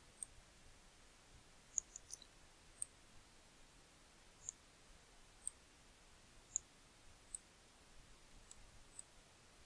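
Computer mouse buttons clicking as strokes are drawn by hand in a paint program: about a dozen short, faint, sharp clicks at uneven intervals, roughly one a second, over near silence.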